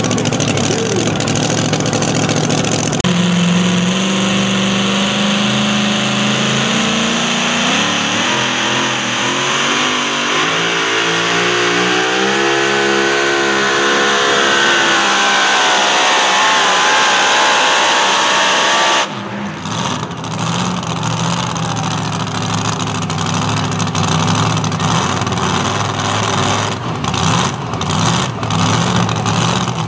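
Supercharged engine of a super modified two-wheel-drive pulling truck running hard under load as it drags the sled, its pitch climbing over many seconds. A little past halfway it breaks off abruptly to the engine idling unevenly.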